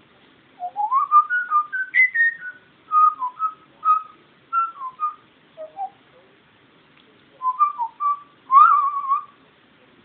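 African grey parrot whistling: a rising whistle, then a run of short whistled notes, and after a short pause a wavering whistle near the end.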